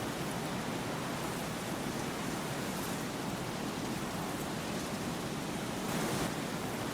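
Steady rushing noise with no distinct events, swelling slightly about six seconds in.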